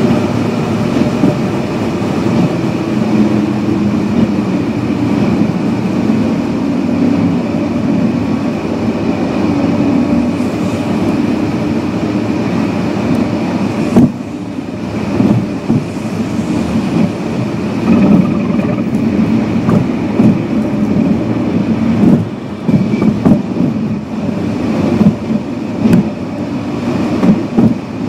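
Steady road and engine rumble of a car driving at highway speed, heard from inside the car. There is a sudden break about halfway through, after which the rumble is more uneven, with short bumps.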